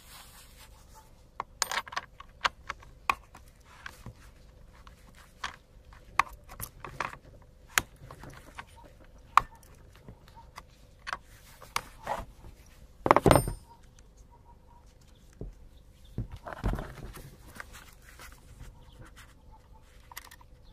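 Irregular metallic clicks and rattles of the saw chain and guide bar of an Alpina A 305 chainsaw being handled and fitted, with a louder knock about two thirds of the way through and a smaller one soon after.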